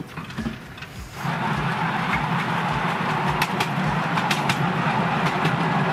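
Ride-on miniature train setting off about a second in, then running steadily along its narrow-gauge track: a low steady hum under the noise of wheels on the rails, with scattered clicks.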